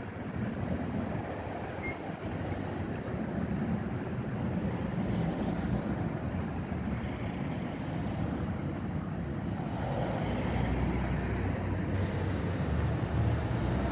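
Street traffic noise with a Stagecoach single-deck bus's engine running as it moves off. A deeper, steadier engine hum comes in about ten seconds in.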